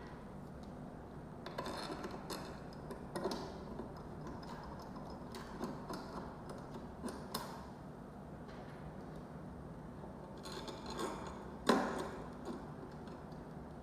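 Scattered small clicks and knocks of smart deadbolt lock parts and hardware being handled and fitted during installation. The loudest knock comes about twelve seconds in.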